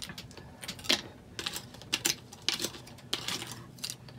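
Two plastic spoons scraping and tapping on a paper plate while scooping up goldfish crackers: a string of irregular, scratchy clicks about one or two a second.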